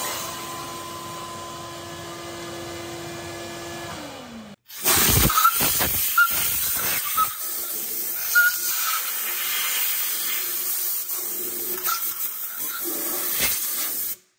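A steady machine hum whose tones drop away and stop about four seconds in. Then compressed air hissing loudly and unevenly from a long blow-gun nozzle held down in an engine cylinder bore, blowing out the metal chips left by the counterbore cut.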